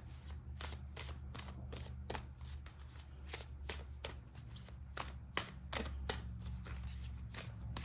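A deck of oracle cards being shuffled by hand: a run of irregular soft slaps and taps, about three or four a second, over a steady low hum.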